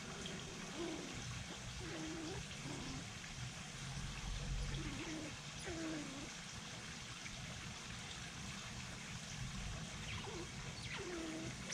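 A dove cooing: low, soft, dipping coos repeated in short groups, over a steady hiss of light rain.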